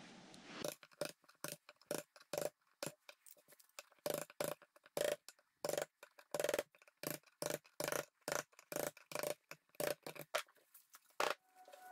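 A hammer tapping the handle of a flat-tip screwdriver, driving it into a crack in a birch slab to pry out loose bark. Sharp knocks, about two or three a second, each with a short ring.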